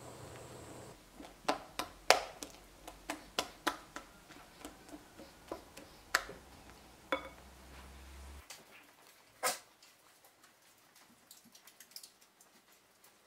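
Silicone whisk knocking and scraping against a glass mixing bowl while stirring madeleine batter, an irregular string of sharp clicks. After a last loud knock it turns much quieter, with only a few faint ticks near the end.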